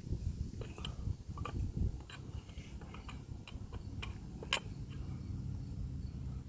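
Scattered light clicks and taps of hands and tools handling a Stihl chainsaw, with one sharper click about four and a half seconds in, over a low steady rumble.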